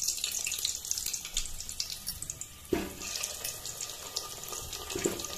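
Potato pieces sizzling and crackling in hot mustard oil in an aluminium pot, with a dull knock about two and a half seconds in and another near the end.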